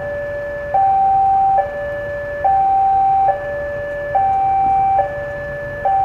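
Railway level crossing warning signal sounding a steady two-tone alarm, switching between a low and a louder high tone about every 0.85 s, meaning the crossing is closed for an approaching train.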